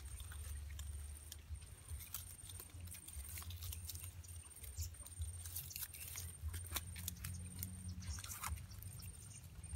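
Small clicks and rustles of a thin plastic strip being wrapped and knotted around a live mud crab's shell, over a steady low rumble.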